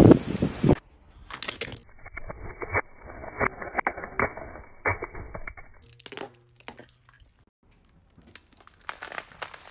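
Crackling, crunching and snapping of objects being crushed under a car's tyres, heard in several short cut-together takes. There is a loud stretch in the first second, scattered sharp cracks in the middle, and a denser burst of crackling near the end.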